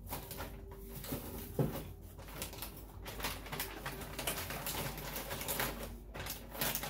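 Plastic-wrapped frozen food packs rustling and knocking as they are pushed into a packed fridge freezer, with one sharper knock about a second and a half in. A low cooing call from a bird is heard briefly near the start.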